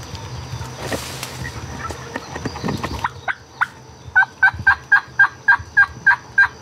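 Brush rustling, then a turkey yelping: a run of about ten short, evenly spaced notes, about four a second, starting a little after halfway.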